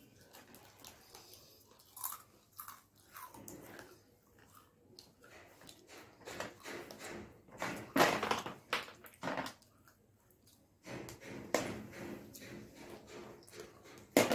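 Close-up chewing and crunching of slate pencil pieces sandwiched between Lay's potato chips: irregular crisp crunches between quieter chewing, the loudest bites about eight and nine seconds in.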